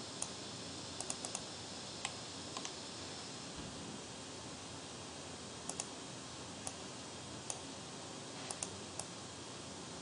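Computer mouse buttons clicking: scattered sharp clicks, some in quick pairs, over a steady faint hiss.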